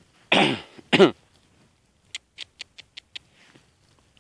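A cat meowing twice, two loud calls falling in pitch. These are followed by a quick run of about six short clicks.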